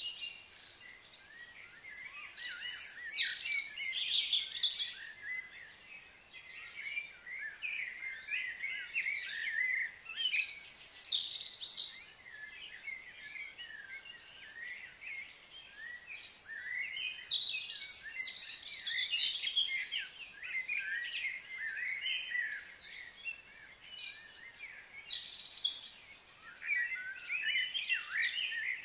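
Several birds chirping and singing, short quick high notes in bursts that come and go.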